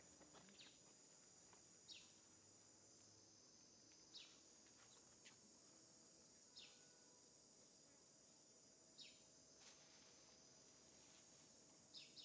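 Faint outdoor ambience: a steady high insect buzz, with a short falling chirp that repeats about every two seconds.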